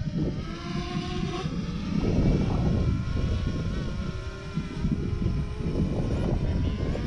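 Quadcopter drone's propellers whining in the air, their pitch drifting up and down as it manoeuvres, over heavy wind rumble on the microphone.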